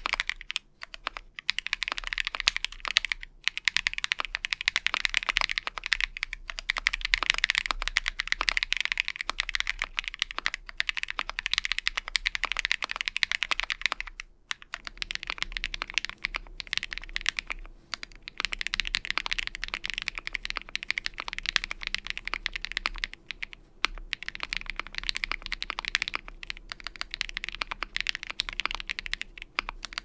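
Fast typing on a mechanical keyboard with Akko V3 Cream Yellow linear switches in an aluminium-plate AI03 Vega with GMK Cherry-profile keycaps: a dense run of keystroke clacks with a few short pauses. The switches are stock in the first half and lubed in the second half.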